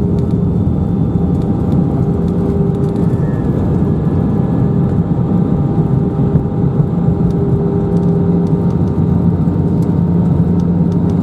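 Airbus A319 cabin noise heard from a window seat: the jet engines and airflow make a steady, loud rushing drone with a constant hum.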